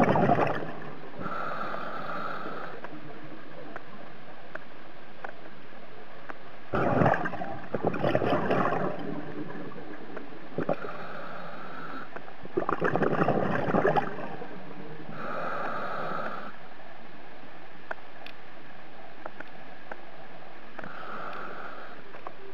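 Scuba diver breathing through a regulator underwater. Each inhale is a hiss from the regulator and each exhale a loud rush of bubbles, in a slow cycle of about three breaths.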